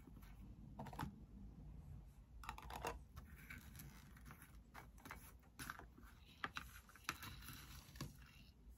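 Faint scattered clicks and short scratches of small wax pieces being handled and set against a metal candle tin, at irregular intervals.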